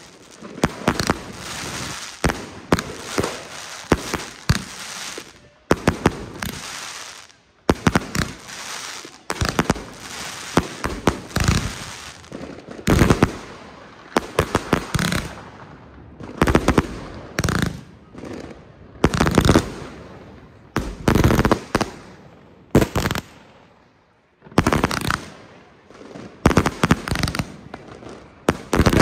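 Fireworks cake firing a long, rapid barrage of shots and aerial bursts, with brief lulls about a quarter of the way in and again late on.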